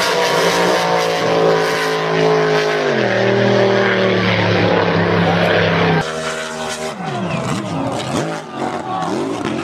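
Racing boat engine running at high speed, its pitch falling sharply about three seconds in. About six seconds in the sound changes abruptly to engine tones swooping quickly up and down in pitch.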